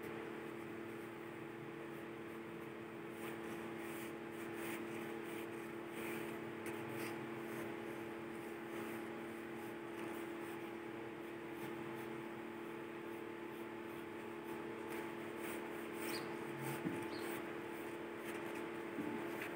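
Pencil scratching across paper in short, irregular sketching strokes, over a steady low hum.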